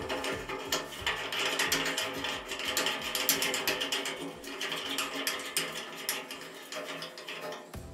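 Plastic back nut being spun by hand up the threaded metal tail of a bath tap: a rapid, uneven run of small ratcheting clicks as it turns over the thread.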